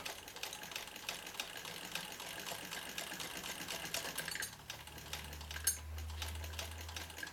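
PMZ-1A sewing machine stitching thin gauze-like fabric: a fast, even run of needle and mechanism ticks. A low hum comes in about halfway through.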